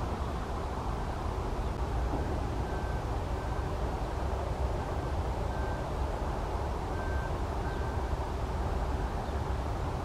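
Steady low outdoor rumble, even and unbroken. Three pairs of faint short high peeps come about 3, 5 and 7 seconds in. No crane calls are heard.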